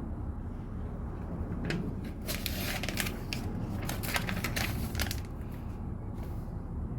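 Small plastic LEGO pieces being handled and fitted together: a run of light clicks and rattles from about two to five seconds in, over a steady low hum.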